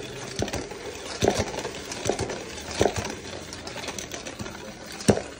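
Spin mop turning in the plastic spinner basket of its bucket as the handle is worked, a steady whirring with irregular plastic clicks and knocks; the sharpest knock comes near the end.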